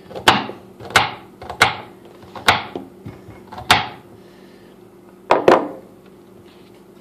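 A Buck 110 folding hunting knife chopping celery on a cutting board: five sharp knocks of the blade striking the board in the first four seconds, irregularly spaced, then a quick double knock a little past five seconds.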